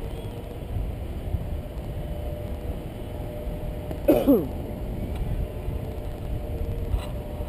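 Wind buffeting the camera's microphone in paraglider flight, a steady low rumble with a faint steady tone underneath. About four seconds in, a short voice sound falls in pitch, like a brief exclamation.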